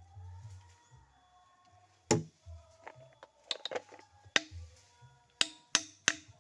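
A series of sharp, irregularly spaced knocks, the first loud one about two seconds in and a quicker run of them in the second half, over faint background music.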